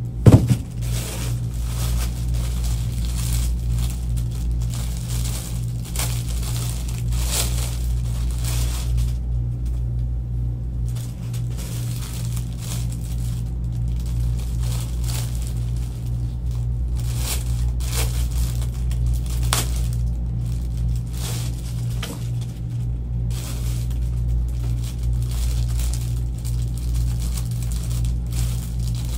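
Plastic garment bags crinkling and rustling as clothes packed in plastic are lifted out of a cardboard box and opened, with one sharp knock just at the start, over a steady low hum.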